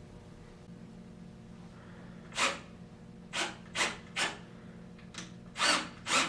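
Half-inch wrench tightening a nut on the bolt of an aluminum chaise lounge frame: about seven short rasping strokes at uneven spacing, starting after a couple of quiet seconds.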